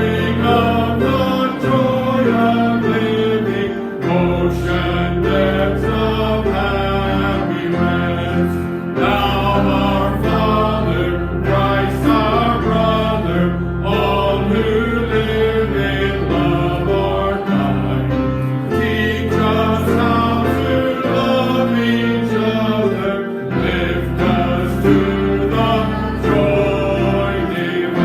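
A hymn sung by a group of voices with instrumental accompaniment, held low notes under the melody, pausing briefly between phrases.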